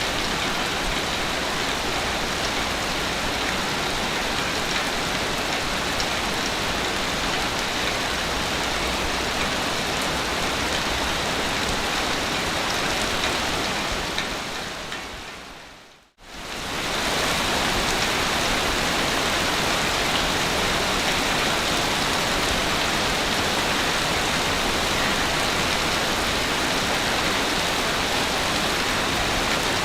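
Steady, even rushing water noise of a looped beach-waves ambience recording. About halfway through it fades out to silence and quickly fades back in.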